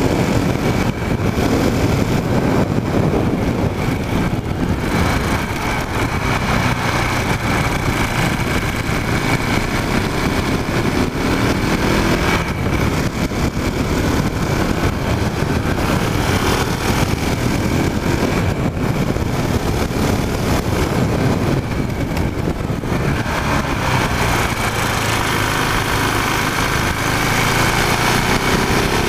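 KTM Duke motorcycle engine running under way, heard through wind rushing over a tank-mounted microphone; the engine note rises several times as the bike accelerates out of bends.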